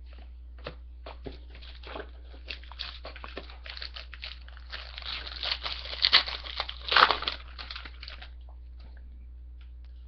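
Hockey card pack wrapper crinkling and tearing as it is opened, a run of crackles that grows louder, with the loudest tearing about six and seven seconds in.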